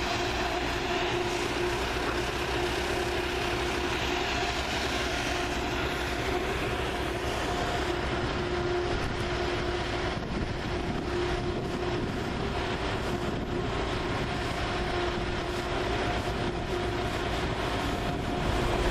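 Heavy harvest machinery running steadily: a diesel engine and drive with a constant whine over a loud, even rushing noise.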